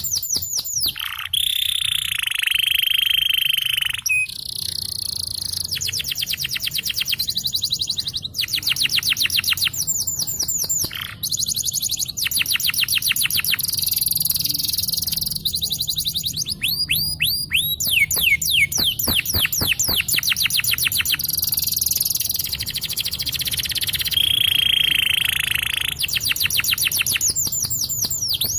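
Domestic canary singing a long rolling song: runs of quick, evenly repeated falling notes, broken twice by a longer steady whistled note.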